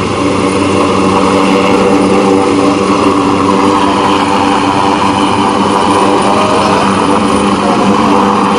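Helicopter flying low overhead: a loud, steady turbine and rotor sound with a constant hum, growing a little louder over the first couple of seconds.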